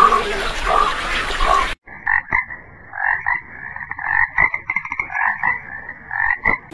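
Frogs croaking in a run of short, irregular calls, several a second. These follow a sharp cut from the end of a louder, noisier animal call in the first couple of seconds.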